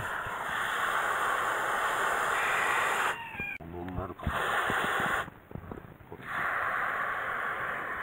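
Water from a garden hose's trigger spray nozzle rushing into a planting hole in dry sandy soil. It cuts off sharply twice, about three and five seconds in, and starts again each time as the trigger is released and squeezed.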